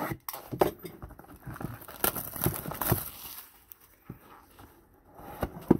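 Plastic shrink-wrap being slit and peeled off a cardboard trading-card box: irregular crinkling and rustling with small clicks, and a sharp tap near the end.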